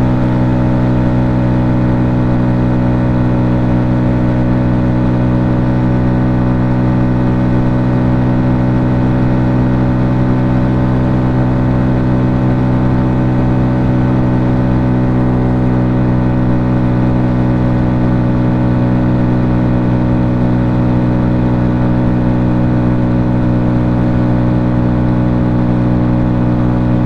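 Honda Grom's 125cc single-cylinder engine running under way at a steady speed, its pitch holding constant throughout.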